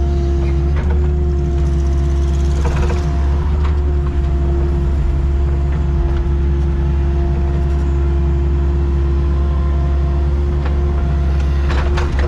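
Excavator's diesel engine running steadily: an even low drone with a constant higher whine over it.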